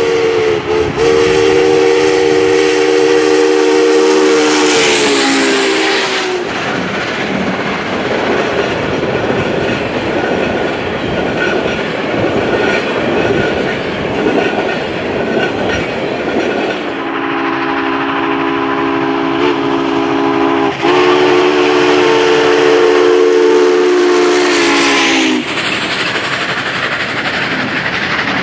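Union Pacific 844's steam chime whistle sounding a long blast of several tones together, falling in pitch as the locomotive goes by. It gives way to the rumble and clickety-clack of the passenger cars rolling past. Later come two more long blasts in a row, with a brief break between them, the second also falling in pitch at its end, then the rumble of passing cars again.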